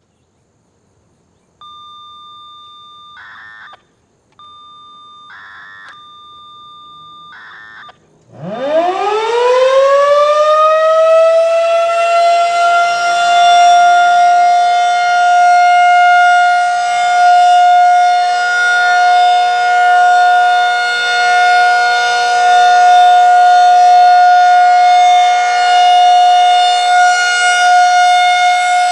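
A Federal Signal 2001-SRN electromechanical warning siren winds up about eight seconds in, its pitch rising quickly to a steady alert tone of about 720 Hz that swells and fades slowly as the horn rotates. Before it starts, a quieter steady electronic tone is heard, broken by three short bursts.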